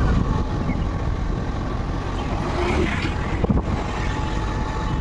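Wind rumbling on the microphone and road noise from a moving vehicle, steady throughout, with a brief knock about three and a half seconds in.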